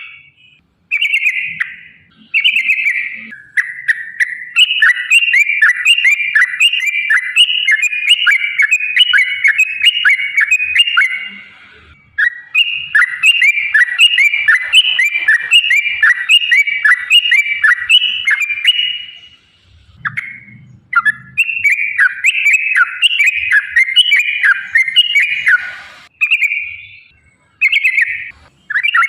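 Yellow-vented bulbul (trucukan) singing long, rapid chattering runs of repeated notes, several seconds each, with brief pauses between runs.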